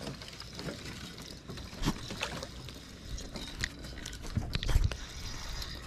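Steady open-air noise of a small boat on the water, with a few scattered clicks and knocks. The loudest is a pair of low thumps about four and a half seconds in.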